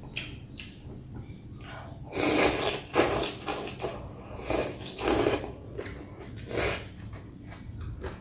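A person slurping rice vermicelli noodles from a bowl of noodle soup: about five short, loud slurps between two and seven seconds in, with quieter chewing and mouth sounds between them.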